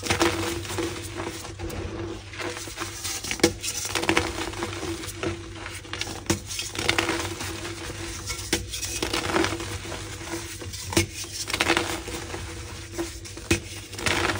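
Pink gym chalk blocks being crushed, a run of irregular crunches and soft crumbling crackles over a steady low hum.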